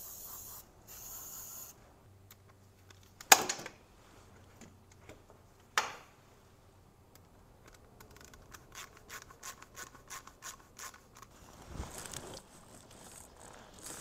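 Aerosol spray can hissing in two short bursts into a rubber intake boot. Then a loud sharp knock about three seconds in and a smaller one near six seconds, followed by a run of light clicks as a ratchet tightens the worm-gear hose clamp on the boot.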